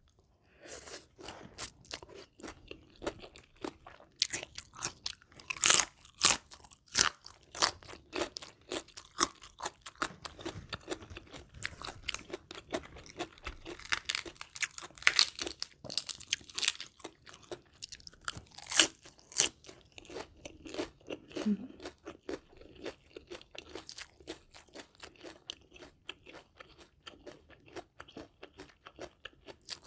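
A person biting and chewing crispy deep-fried chicken close to the microphone: many sharp, irregular crunches in quick succession, with a few louder bites along the way.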